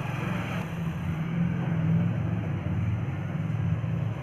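A motor running steadily, giving a continuous low drone with a fast flutter in it.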